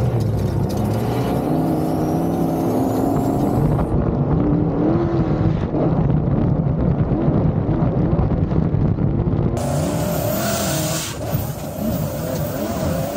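Off-road vehicle engines running and revving, pitch rising and falling. The sound changes abruptly about four seconds in and again near ten seconds.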